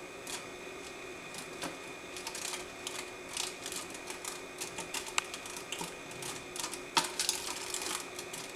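A large moth fluttering inside a glass terrarium, its wings tapping against the glass and mesh cover in rapid, irregular clicks that grow busier after a couple of seconds, with one sharp knock about seven seconds in.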